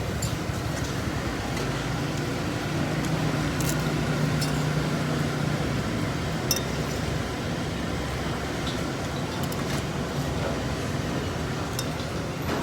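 Cutlery clinking against a plate now and then while eating, over a steady low background rumble.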